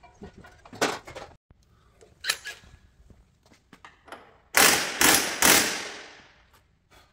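Three loud bursts from a compressed-air tool about half a second apart, the last trailing off, with a few sharp metal clinks before them.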